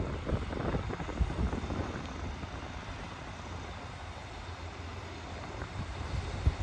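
Two-car diesel multiple unit running slowly in toward the platform: a steady low engine drone under an even hiss, with gusts of wind buffeting the microphone in the first two seconds.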